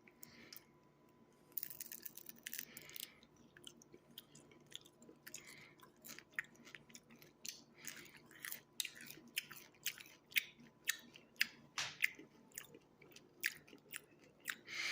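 A person chewing crunchy toasted grasshoppers (chapulines) close to the microphone, with many sharp, irregular crunches starting about a second and a half in.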